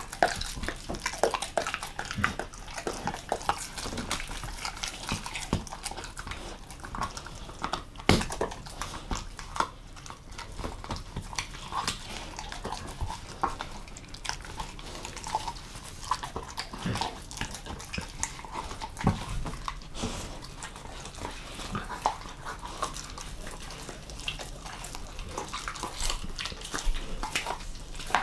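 A German Shepherd mix chewing and gnawing on a raw monkfish. It makes a steady run of irregular clicks and smacks, with one sharper click about eight seconds in.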